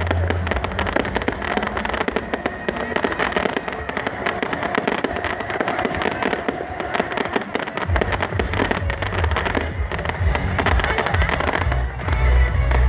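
Dense, rapid crackling like a string of firecrackers going off, over loud music from a sound system. The music's heavy bass drops away in the first second and comes back about eight seconds in.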